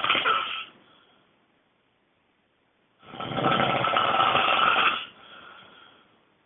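A person snoring loudly. One snore is ending at the start, then after a quiet gap a long snore begins about three seconds in and lasts about two seconds, trailing off into a softer breath.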